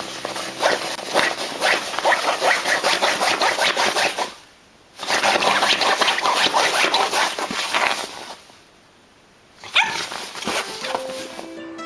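A dog vocalising in rapid, choppy bursts while it rolls and wriggles on its back in its bed: two long stretches broken by short pauses, then one short cry about ten seconds in.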